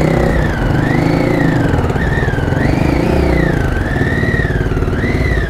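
Triumph Tiger 800's inline three-cylinder engine running at low speed in slow traffic. Over it runs a high whistling tone that wavers up and down.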